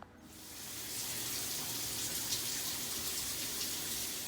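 Water running steadily from a tap, a rushing hiss that swells in over about a second and fades out near the end.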